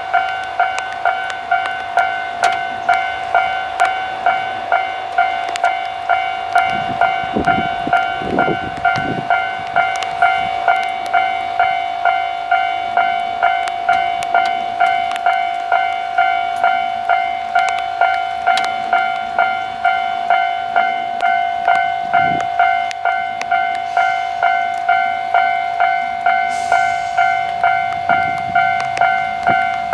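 Railway level-crossing warning bell ringing steadily, about two dings a second. Under it come a low diesel rumble from the railcars, rising briefly twice, and a short hiss near the end.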